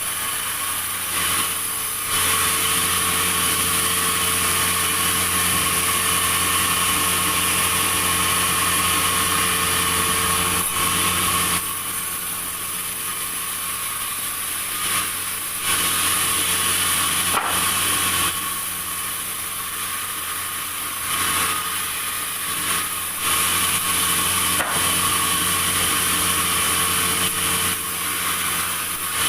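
Sawmill saw cutting through timber, with a steady machine hum underneath and a harsh, hissing cutting noise that swells for several seconds at a time and eases off between passes.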